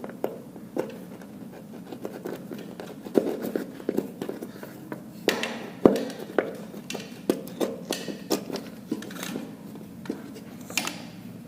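Irregular clicks, taps and scraping of cables and plastic being handled as wires are pushed up into a ceiling lining, with one sharper knock about halfway through.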